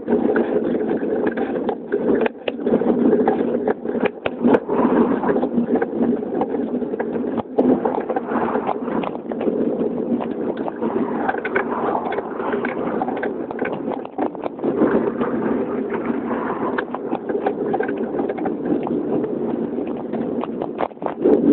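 Steady riding noise picked up by a bicycle-mounted camera on the move: a constant rumble of wind and tyres on tarmac, with frequent short knocks and rattles as the bike goes over bumps.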